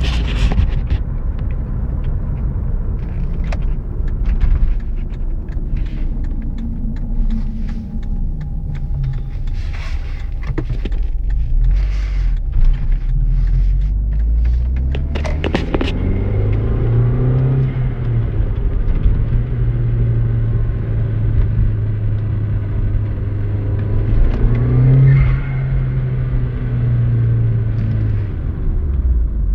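Audi TT 225 hp's 1.8-litre turbocharged four-cylinder engine running under quick accelerations and throttle lift-offs, the revs rising sharply about halfway through and again briefly near the end. On lift-off the turbo makes a weird noise whose cause the owner does not know.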